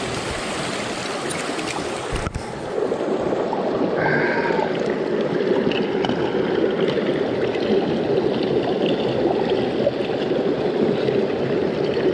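Small rocky mountain brook rushing and splashing over boulders, a steady water noise that gets a little louder and fuller after about two and a half seconds. A single sharp knock about two seconds in.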